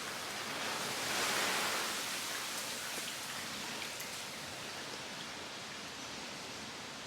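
Steady heavy rain, an even hiss with faint scattered drop ticks, swelling a little about a second in and then holding level.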